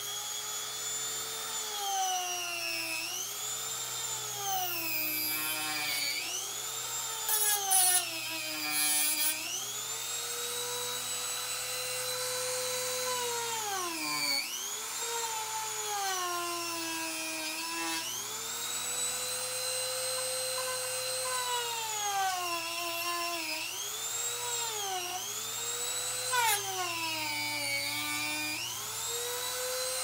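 Dremel rotary tool running at high speed and cutting into an ATV tire's rubber and steel belts close to the rim. Its whine sags in pitch and recovers again and again as the tool bogs under load, with a few harsher grinding bursts about eight seconds in.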